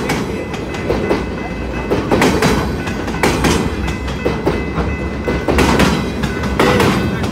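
Empty windmill flatcars of a freight train rolling past: steel wheels clattering over the rail joints in an irregular run of knocks over a steady low rumble.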